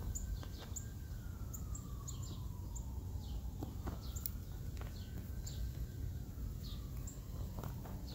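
Outdoor ambience: small birds chirping in short, repeated high notes, over a faint siren slowly wailing down and back up. There are a few light clicks and a steady low rumble underneath.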